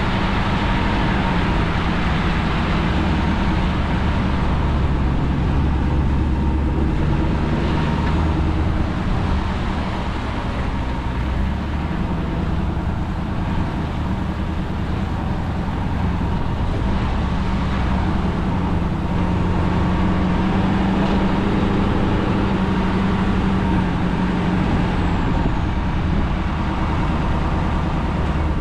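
Ford Super Duty pickup truck driving, with a steady low engine hum and road noise throughout.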